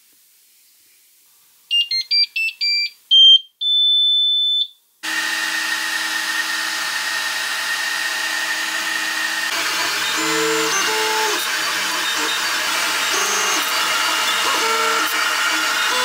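A 3D printer's buzzer plays a quick run of beeps of changing pitch, then one long beep. About five seconds in its fans start with a steady whir, and from about ten seconds in its stepper motors add short whining tones that switch pitch as they move.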